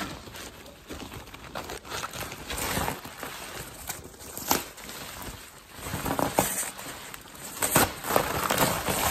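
Bubble wrap and thin foam packing sheet crinkling and rustling as they are pulled and handled to free a grille, with irregular sharp crackles.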